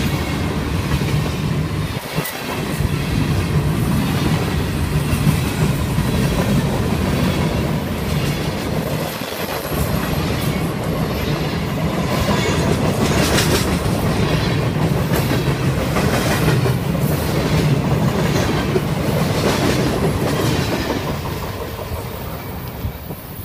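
Freight train of open-top hopper and gondola cars rolling past close by, steel wheels rumbling and clicking on the rails. The sound fades near the end as the last car moves away.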